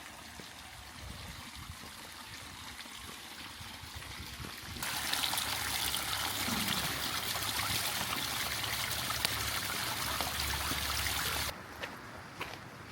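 Running water, an even hiss that becomes much louder about five seconds in and stops abruptly a little before the end, followed by a few faint clicks.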